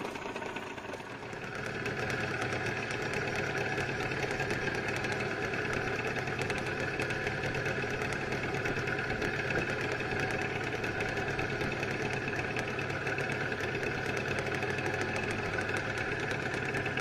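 Boat's outboard motor running steadily, picking up throttle about a second and a half in, as for trolling.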